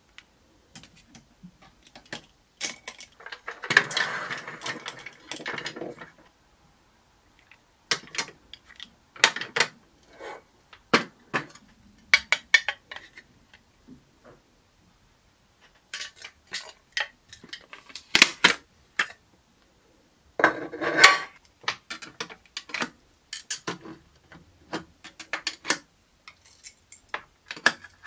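Clear acrylic storage cases and nail-tip stands being handled: scattered sharp clicks, taps and clinks of hard plastic, with two denser stretches of clatter about 4 seconds and 21 seconds in.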